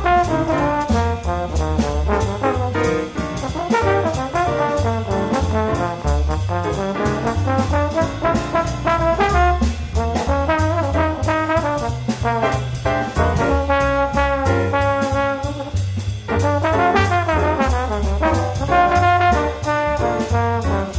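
Instrumental background music, a moving melody line over a steady pulse of low bass notes.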